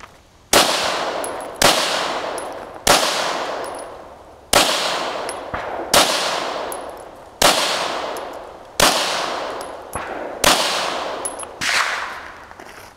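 Glock 34 9mm pistol firing nine single shots at a steady pace, about one every second and a half, each shot trailing off over about a second.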